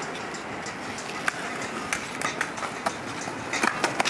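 Skateboard wheels rolling over concrete with a steady rumble, with several sharp clacks of boards hitting the ground, two of them close together near the end.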